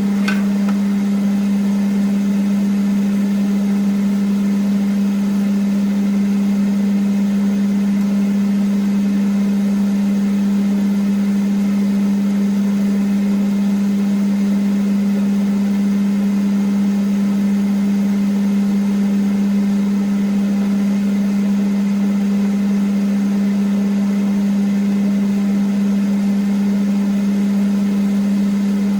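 Kitchen extractor hood and apartment ventilation fans running at maximum: a loud, steady hum held at one pitch, unchanging throughout.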